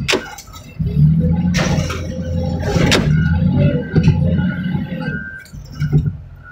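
Heavy equipment engine running, with metal clanks and bangs and a scraping crunch from about one and a half to two seconds in as a scrap car is handled; the sharpest bang comes about three seconds in.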